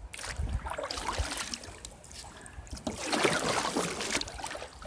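Water splashing and sloshing around a kayak on a fast-running creek, in irregular bursts, busiest about three seconds in.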